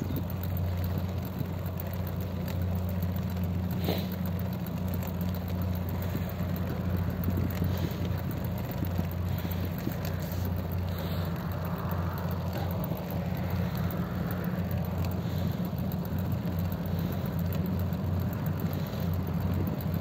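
A vehicle engine running at a steady speed on the move: a low, even drone with a steady rushing hiss above it.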